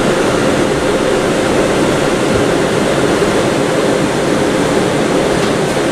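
Steady roar inside an R179 subway car running along the track: wheels on rails and running gear, an even rushing noise with a faint hum that does not change.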